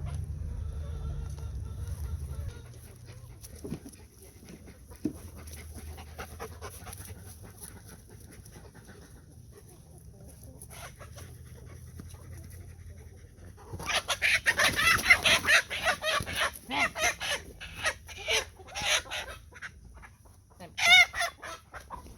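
Chicken calling loudly and repeatedly as it is caught, starting about two-thirds in, with one last short pitched squawk near the end; before that only faint, scattered chicken sounds.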